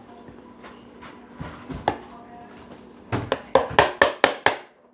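A spoon knocking and scraping against the mixing pot as thick, freshly set homemade slime is worked. A few scattered knocks come first, then a quick run of about seven sharp knocks near the end.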